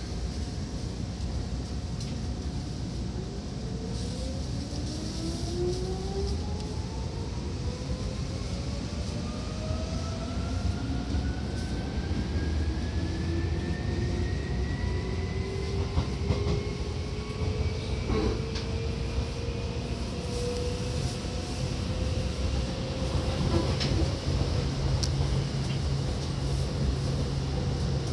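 Seibu 2000 series electric train accelerating, heard from inside the car: the running gear's whine rises steadily in pitch over about twenty seconds above a constant rumble, with a few clacks of rail joints and a low hum setting in near the end.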